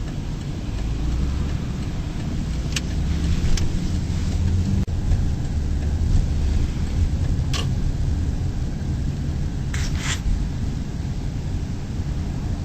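A car driving, heard from inside the cabin: a steady low engine and road rumble. Its higher engine note drops away about five seconds in, and a few brief sharp clicks come through.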